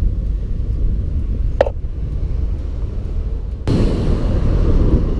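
Car driving with wind rushing over a roof-level microphone and low road and engine rumble. The rush gets louder and fuller about three and a half seconds in.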